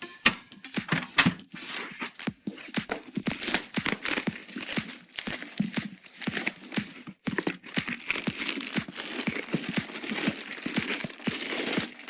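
Plastic packaging crinkling and tearing, mixed with small clicks and knocks from handling parts.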